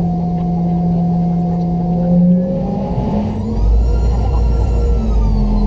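BMW Rolls-Royce BR715 turbofan engines of a Boeing 717 running, a steady hum with whining tones. About halfway through, the pitch shifts, a whine rises and later eases off, and a heavy low rumble comes in.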